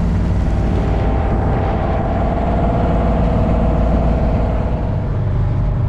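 Fishing boat's engine running steadily under way, with the rush of water and spray along the hull.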